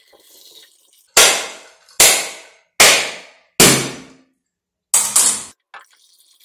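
Machete striking a dry, mature coconut held in the hand to crack its shell open: six sharp knocks, each with a short ring. Four come evenly, just under a second apart, then two in quick succession near the end.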